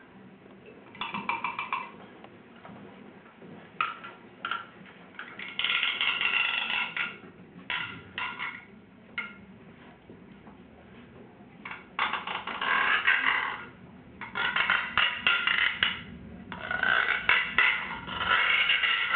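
Improvised percussion on a sound sculpture of hanging rods and objects: irregular clusters of quick strikes that ring briefly in several tones, separated by quieter gaps. The strikes come thicker and louder over the last few seconds.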